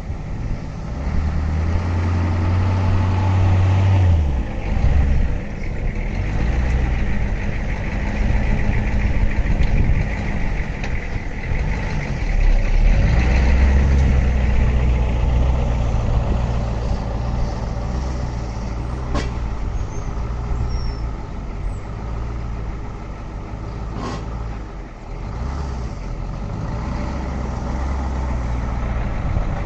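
Ford 6.9L V8 diesel engine running in a pickup truck, its speed rising and falling as the truck is worked in low gear. Two sharp clicks about 19 and 24 seconds in.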